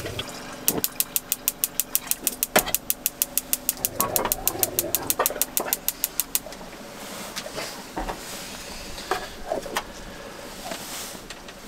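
Gas burner's spark igniter ticking rapidly, about six clicks a second, for roughly six seconds, with some clatter of handling partway through; the ticking then stops.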